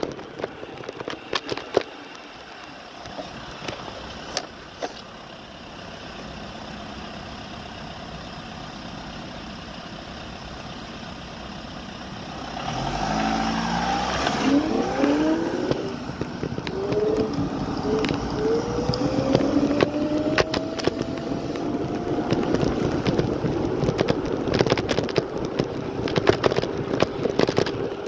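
Electric scooter ride: a steady motor whine with frequent rattles and knocks from riding over the pavement. About halfway through the sound gets louder and a nearby motor vehicle accelerates, its pitch rising in several sweeps.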